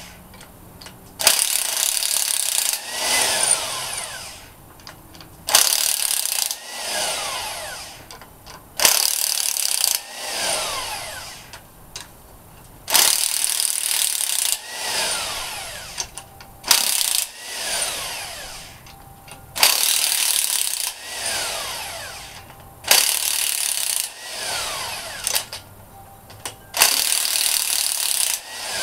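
A power tool runs in short bursts, about eight times, spinning out cylinder-head bolts. Each burst lasts a second or two and winds down with a falling whine.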